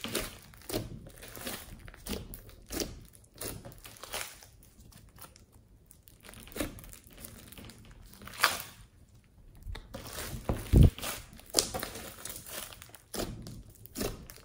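Hands kneading, stretching and pressing a thick slime mixed with small foam beads, giving irregular crackles, pops and squishes. A loud thump comes about eleven seconds in.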